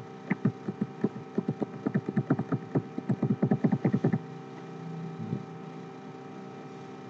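Computer keyboard keys clicking in a quick run of about twenty taps as the Ctrl+D duplicate shortcut is pressed over and over, stopping about four seconds in. A steady hum runs underneath.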